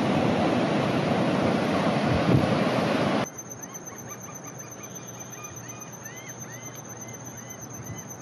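Small ocean waves breaking and washing on the beach, a steady rush of surf, until a cut about three seconds in. Then much quieter outdoor ambience: a bird giving a run of short, arched calls over a steady high insect drone.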